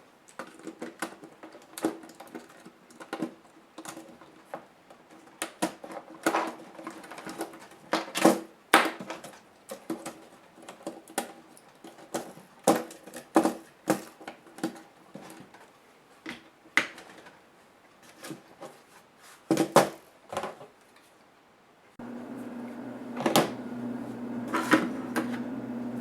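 Irregular clicks, taps and knocks of small plastic and metal laptop parts being handled and pried apart during disassembly. About four-fifths of the way in, a steady low hum starts suddenly under a few more knocks.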